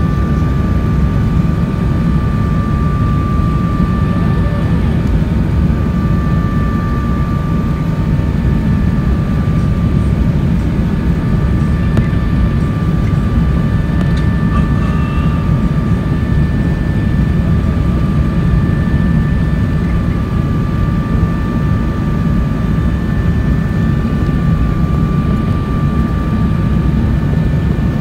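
Steady cabin noise inside an Airbus A380 descending on approach: a low rumble of the engines and airflow, with two steady high whining tones from the engines.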